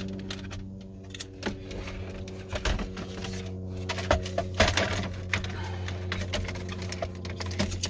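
Irregular clicks and rattles of plastic interior trim and connectors being handled and snapped back into a pickup's center console, busiest from about halfway through, over a steady low hum.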